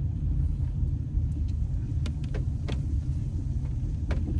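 Steady low road and engine rumble inside a moving car's cabin, with a few faint clicks about halfway through and again near the end.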